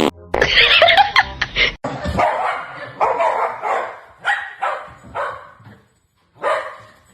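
A dog barking, a run of short barks about half a second to a second apart, with one more after a brief pause near the end.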